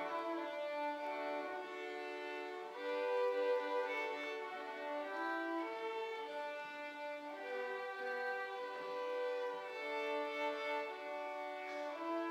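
A small string orchestra led by violins playing a slow passage of long, held notes that move in steps from one to the next.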